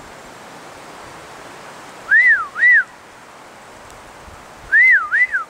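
A person whistling two-note phrases, each note swooping up and back down, clear and loud. Two phrases come about two and a half seconds apart, over a faint outdoor hiss.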